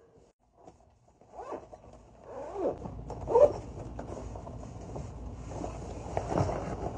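Zipper on a fabric children's lunch bag being pulled, several short zip strokes, the loudest about halfway, with the bag rustling as it is handled close up.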